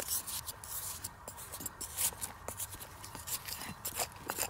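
Metal hand trowel scraping and scooping dry, crumbly soil, with loose dirt pattering off the blade, in a run of short, irregular scrapes.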